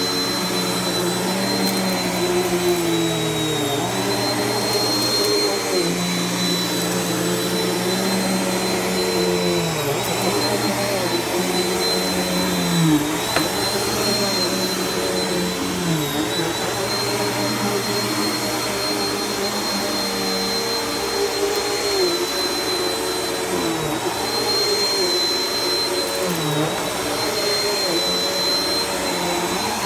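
Bissell PowerForce upright vacuum cleaner running steadily over a thick shag rug, a high motor whine over a lower hum. Its pitch dips briefly every few seconds as it works the pile.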